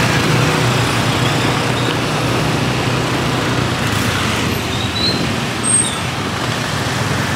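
Road traffic noise: motor vehicles running steadily, with a few faint high chirps partway through.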